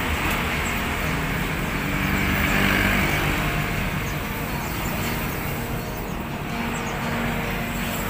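Steady road traffic noise that swells as a vehicle passes about two to three seconds in, with a few faint, brief high chirps from small caged birds.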